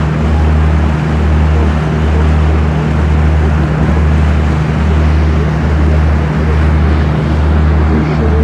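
Boat under way: its engine runs as a loud, steady low drone with a regular throb about once a second, over the rush of churning wake water.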